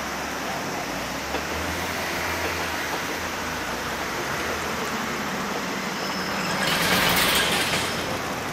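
Chichibu Railway 1000 series electric train (ex-JNR 101 series) running past at a distance: a steady noise, with a louder hiss about seven seconds in.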